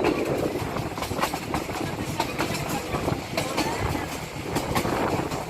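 Passenger train under way on the rails: a steady rumble with irregular clicks and knocks from the wheels running over the track.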